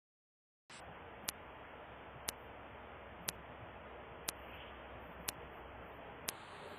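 Six sharp ticks exactly a second apart, the steady beat of a clock, over a faint steady room hum. The sound cuts in abruptly from dead silence less than a second in.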